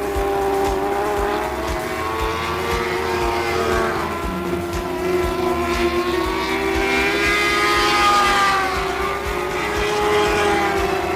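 Several lightning sprint cars running together at racing speed, their engines at high revs, the pitches rising and falling as the cars pass and change throttle.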